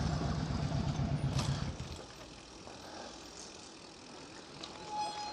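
A motor vehicle's engine running with a low, pulsing throb, which drops away about two seconds in and leaves a much quieter background. A brief high squeak comes near the end.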